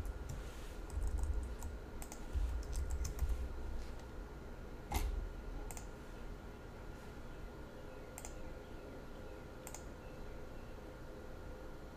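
Computer keyboard typing in quick runs for the first few seconds, then a handful of single clicks spaced a second or more apart, over a faint steady hum.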